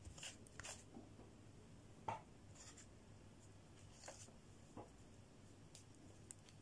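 Near silence: room tone with a few faint clicks and rustles of things being handled on a tabletop, the loudest a short tap about two seconds in.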